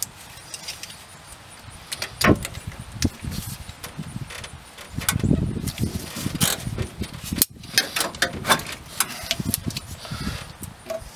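A wrench clinking and scraping on a screw-type radiator hose clamp as it is worked loose, with irregular sharp metal clicks and the rubbing and handling of the rubber hose being twisted.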